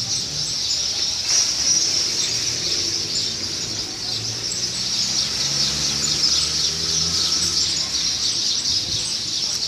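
A chorus of many small birds chirping and calling at once, a dense, continuous high-pitched twittering.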